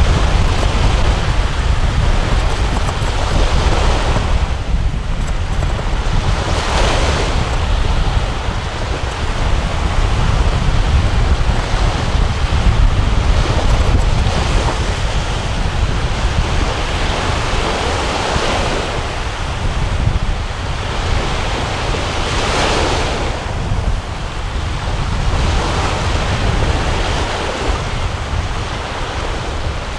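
Surf washing on the shore, swelling up every several seconds, under strong wind buffeting the microphone with a steady low rumble.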